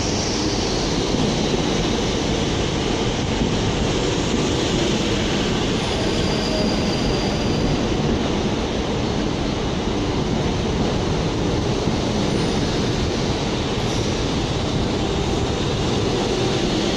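A train running steadily, a continuous even rumble with a faint high squeal from the wheels now and then.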